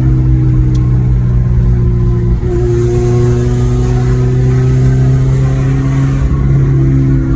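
Car engine running under load while driving, heard from inside the cabin, its pitch climbing slowly and steadily.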